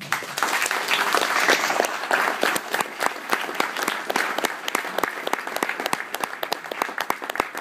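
Audience applauding, starting at once and fullest in the first couple of seconds, then thinning out. One person's hand claps close by stand out as sharp single claps over the rest.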